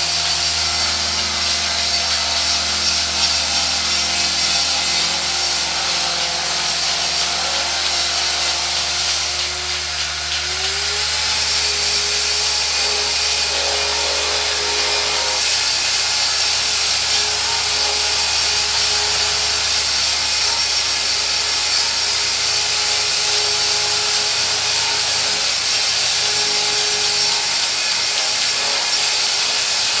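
Electric grinder running steadily with a cup wheel, grinding on metal. About ten seconds in, its motor note steps up in pitch and holds there.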